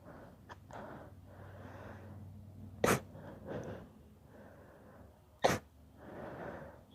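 A man sneezing twice in a sneezing fit, two sharp, loud sneezes about two and a half seconds apart, with breathy inhales between them.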